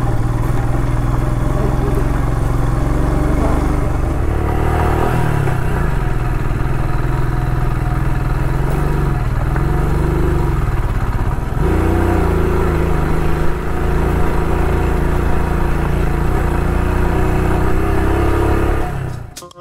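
Royal Enfield Scram 411's single-cylinder engine running under load up a gravel track, its pitch rising and falling with the throttle. The sound drops briefly about twelve seconds in, then steadies, and cuts off just before the end.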